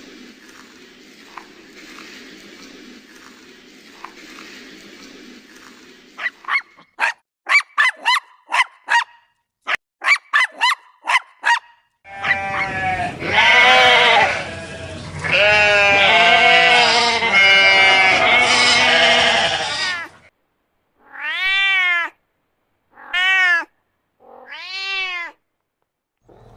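Animal calls in several short clips: a faint noisy stretch, then a quick run of short sharp calls, then a long loud stretch of overlapping calls, and near the end three separate calls that each rise and fall in pitch.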